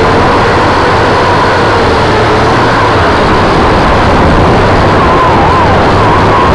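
Quadcopter drone's motors and propellers running loud and close to the on-board camera's microphone, a steady buzz with a whine that wavers up and down in pitch.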